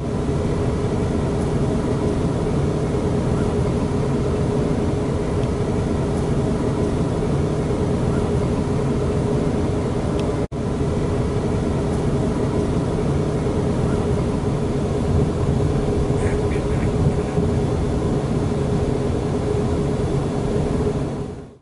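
Passenger train running, heard from inside the carriage: a steady rumble with a constant hum, broken once by a short gap about halfway through.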